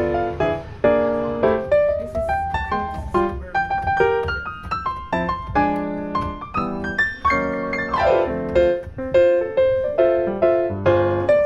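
Background piano music: a running tune of quick notes and chords.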